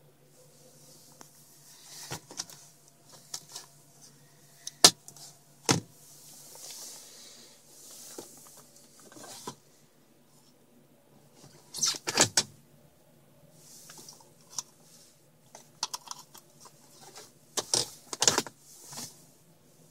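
Car engine idling steadily, heard as a low hum from inside the cabin, with scattered sharp clicks and knocks as the centre-console controls are handled: the cigarette lighter, ashtray and gear selector. The loudest clicks come in clusters about twelve seconds in and again near the end.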